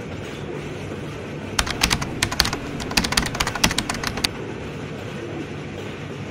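Passenger train running with a steady rumble, and a rapid burst of sharp, irregular clicks lasting a few seconds in the middle.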